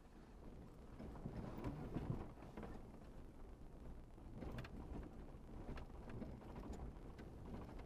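A truck driving slowly over a rough, rutted dirt trail, heard from inside the cab: a low, steady rumble of engine and tyres with a few scattered knocks and clicks.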